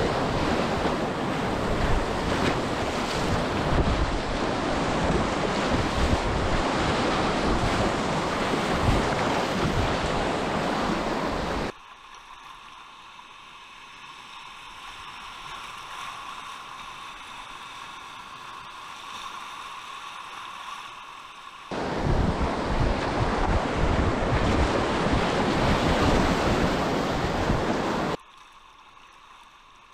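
Whitewater rapids rushing loudly around a kayak, with wind buffeting the microphone. About twelve seconds in the roar cuts off abruptly to a much quieter, muffled stretch, returns just as suddenly later, and cuts off again near the end.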